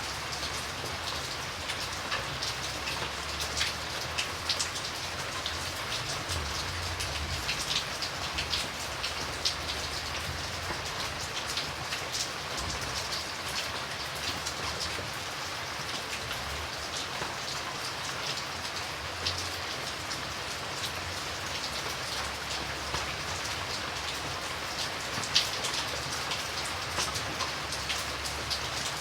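Steady rain falling, with many individual drops ticking sharply on a surface over a constant hiss and a faint low rumble.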